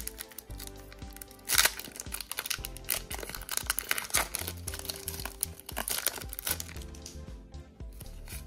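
Foil wrapper of a Pokémon card booster pack crinkling and tearing as it is ripped open by hand, over background music.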